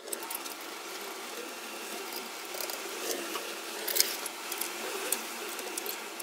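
Light metallic clicks and clinks as cylinder-head bolts are fitted and threaded on by hand on a small single-cylinder motorcycle engine, over a steady background hiss; the sharpest click comes about four seconds in.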